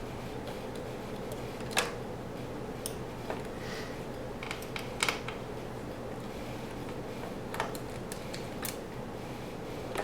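Light clicks and taps of a screwdriver and small plastic parts while screws are taken out of a Roomba 500 series robot vacuum's housing: about half a dozen irregular clicks, the sharpest about two and five seconds in, over a steady low hum.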